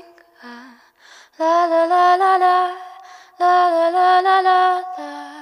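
Recorded song with a woman's voice singing two long held notes, each about two seconds and slightly wavering in pitch, after a few short, quieter notes.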